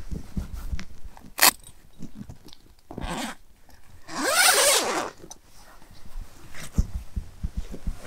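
Fabric and bedding being handled on the floor of a tent-like photo hide: rustling, with a sharp click about a second and a half in and a longer scraping rasp between about four and five seconds in.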